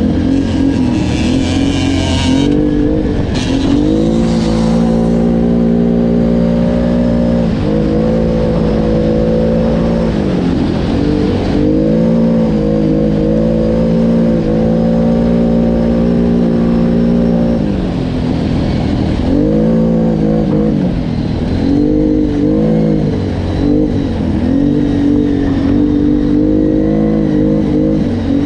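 Off-road vehicle engine under way, revving up and down with the throttle. Its pitch holds steady for several seconds at a time, then rises and falls repeatedly near the end.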